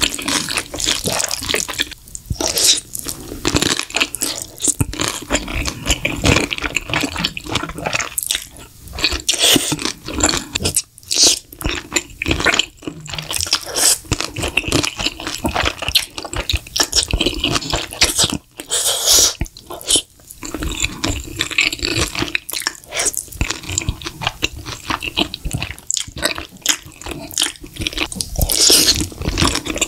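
Close-miked eating of creamy alfredo pasta: wet chewing and slurping of sauce-coated noodles, with a constant stream of sticky clicks and smacks.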